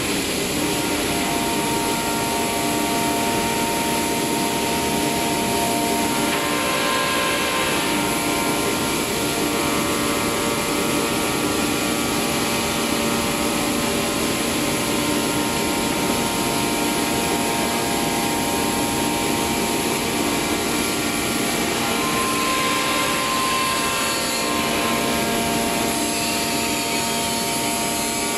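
CNC router spindle running and milling wood panel into rings: a steady machine whine of several tones over cutting noise, the tones shifting a little a few times as the cut moves.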